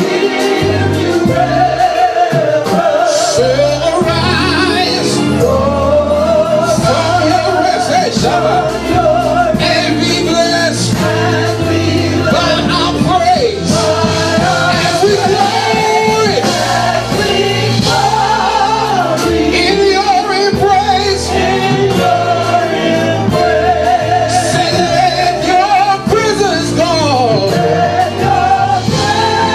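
Live gospel praise-and-worship song: singers carrying a held, bending melody over a band with bass and drums.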